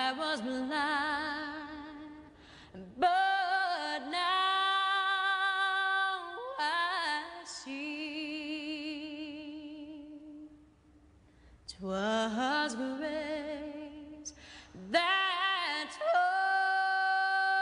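A woman singing a slow song in long, held notes with vibrato, phrase by phrase, with a brief pause about two-thirds of the way through; little or no accompaniment is heard.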